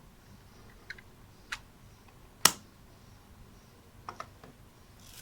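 Small plastic clicks and taps from handling a wireless doorbell's remote as its battery cover is closed, with one sharp snap about two and a half seconds in and a few lighter clicks around it.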